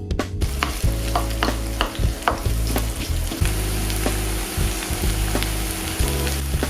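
Food sizzling in a frying pan, starting about half a second in, while a utensil stirs it, with repeated clicks and scrapes against the pan.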